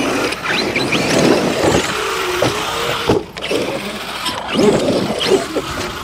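ARRMA 8S brushless electric RC truck driven hard on loose dirt: the motor whine rises and falls as the throttle is worked, over the hiss of tyres throwing dirt, with a brief drop about three seconds in. Near the end the truck tumbles over.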